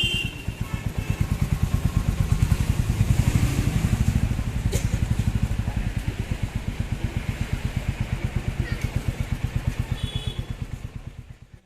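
Royal Enfield Classic 350's single-cylinder Meteor engine idling through its exhaust: an even, steady thump of firing pulses that swells briefly about two seconds in, then fades away near the end. A single sharp click is heard about halfway through.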